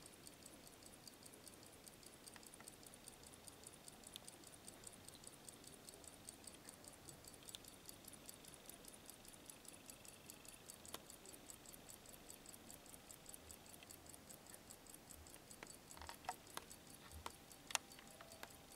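Mechanical watch movement ticking quickly and evenly, about five ticks a second. A few louder clicks and knocks come near the end.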